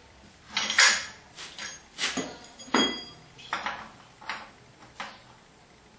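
Irregular metal clanks and scrapes as the steel cylinders of a homemade wood-gasifier burner are handled at their flanged joint. There are about eight of them, the loudest about a second in, one with a short metallic ring.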